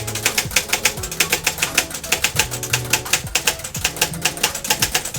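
Fast typing on a 1968 Montgomery Ward Signature 510 typewriter: a rapid, even run of sharp key and typebar clacks, about eight to ten a second. Background music plays underneath.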